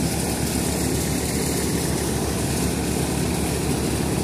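Tractor-driven threshing machine running steadily under load as dry crop plants are fed in: a continuous mechanical drone with a fast, even low throb and a hiss of chaff and straw over it.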